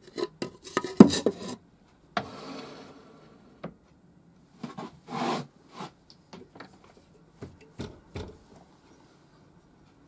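Metal pen-kit parts and lathe fittings being handled during assembly: a cluster of clanks and knocks near the start, loudest about a second in, then a scrape about two seconds in, and scattered clicks and taps after.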